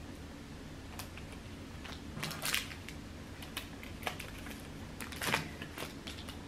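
Small plastic-wrapped items being handled and unwrapped: scattered crinkles, rustles and light clicks, with the loudest bursts about two and a half seconds in and again near five seconds, over a faint steady hum.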